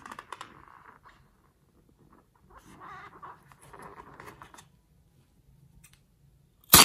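Hands squeezing and turning a slime-filled latex balloon, the rubber rubbing and creaking in two short spells. Right at the end the balloon is cut open with scissors and there is a sudden loud burst as the slime begins to spurt out.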